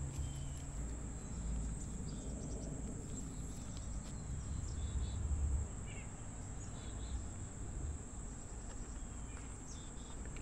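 Steady high-pitched drone of insects with a few faint, short bird chirps over it. A low rumble sits underneath and drops away a little past halfway through.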